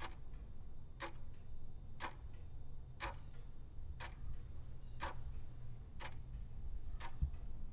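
Countdown timer sound effect: a clock ticks once a second, eight ticks in all, over a steady low hum.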